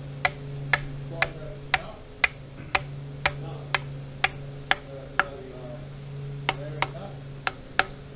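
Ball-peen hammer tapping steel bolts into the flange of a StuG III G tank final drive, metal on metal: sharp strikes about two a second for roughly five seconds, a short pause, then four more spaced strikes.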